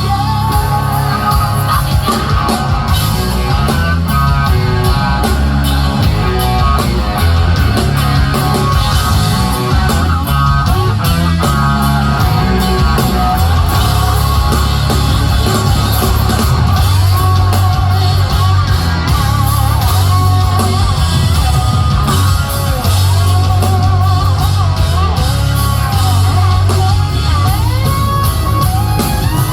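Live rock band playing a song: electric guitar, bass and drums with singing, loud and steady throughout.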